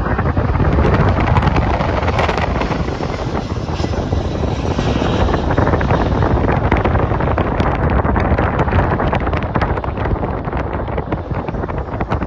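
Airbus A300-600ST Beluga's twin turbofan engines at takeoff thrust, a loud, steady jet rumble as the aircraft rolls, lifts off and climbs away, with wind buffeting the microphone.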